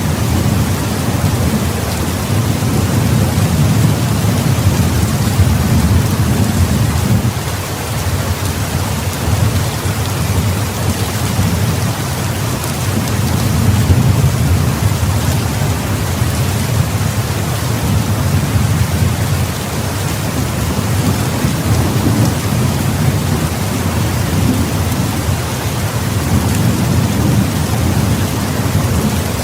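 Heavy rain falling steadily, with low rolling thunder rumbling underneath that swells and fades several times.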